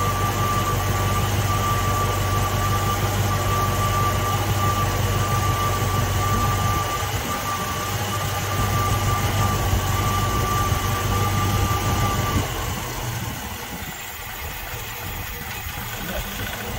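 Ford 289 V8 of a '66 Mustang idling steadily while its ignition timing is checked. A thin steady high whine rides over the idle and stops about twelve seconds in, after which the engine sounds a little quieter.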